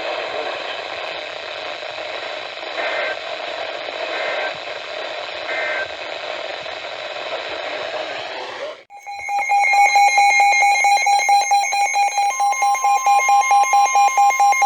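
Radio hiss and static with a few short blips, then about nine seconds in it drops out and a loud steady alert tone starts. A few seconds later a second, slightly higher tone joins it, forming the two-tone Emergency Alert System attention signal that opens a severe thunderstorm warning. The tone wavers rapidly as the distant signal fades.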